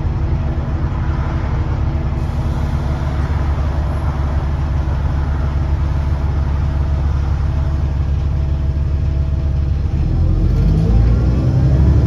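A double-decker bus's diesel engine running under way, heard from inside the passenger saloon, with a steady drone. About ten seconds in it gets louder and its pitch sweeps as the engine revs harder.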